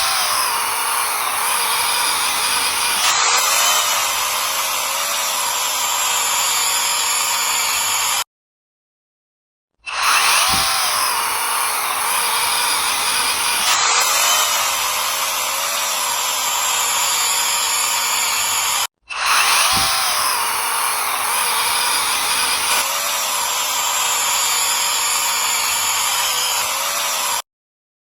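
Chainsaw engine running at high speed, cutting wood, in three stretches that each cut off abruptly into short silences.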